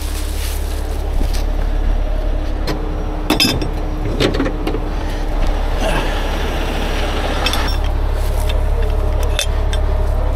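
A heavy rotator tow truck's diesel engine runs steadily with a low rumble, under metal clinks and rustling as chains and rigging are handled through brush; a sharp metallic clink comes about three seconds in.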